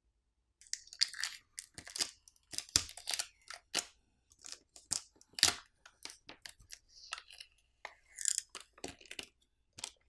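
Plastic battery adhesive pouch film being peeled off a Samsung Galaxy S24 Ultra's frame, crackling and crinkling in irregular bursts that start about half a second in.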